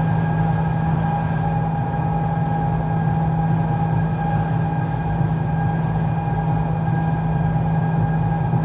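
Stuttgart rack railway railcar running downhill, heard from inside the driver's cab: a steady rumbling drone with a constant whine from its drive that holds the same pitch throughout.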